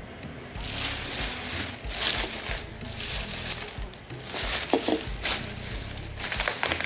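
Plastic grocery bags rustling and crinkling in irregular bursts as produce is handled.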